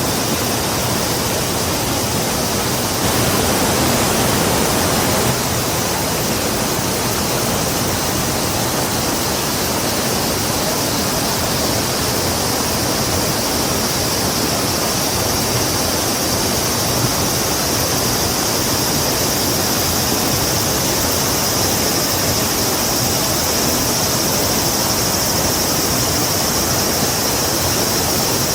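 Rushing river water, a steady, dense sound of flowing water with a high hiss that grows stronger in the second half.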